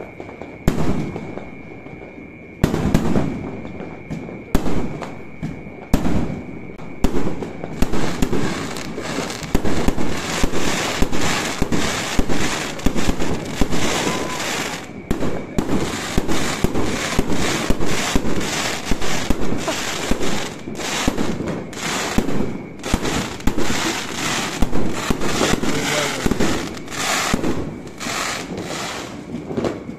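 Aerial fireworks bursting overhead, a rapid barrage of bangs and crackles that grows denser after the first several seconds.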